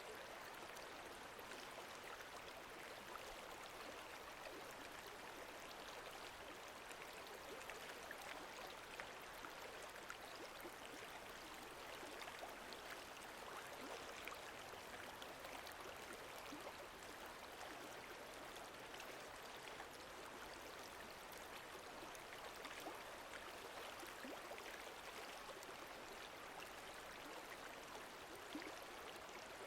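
Faint, steady wash of lake water moving gently, with many small splashes and drips sprinkled through it.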